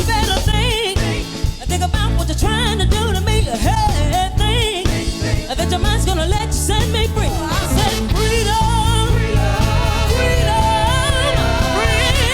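Soul and Motown-style song: singers with wide vibrato over a full band with a steady, heavy bass. Longer notes are held in the last few seconds.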